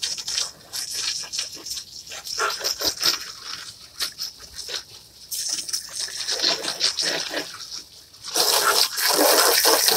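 Garden hose spraying water onto plastic chairs and wet pavement: an uneven splashing patter that grows louder about five and a half seconds in and again near the end.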